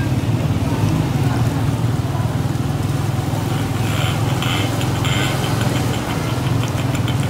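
A small engine running steadily at low revs through floodwater, with a constant low hum and the wash of water around it. From about four seconds in, a run of short, rapid high clicks sounds over it.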